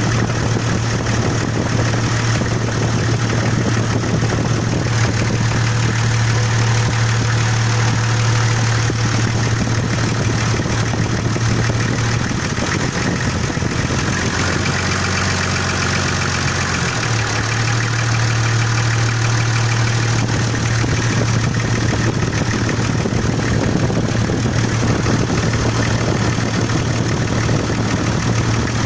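Nissan TD42 inline-six diesel idling hot with a knock, which the owner hears only when the engine is warm and cannot trace. The engine note shifts for a few seconds about halfway through, then settles back.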